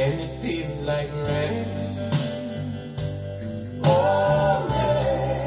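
Recorded soul ballad playing over hi-fi loudspeakers: guitar and band, with a man's voice coming in strongly on a held sung note about four seconds in.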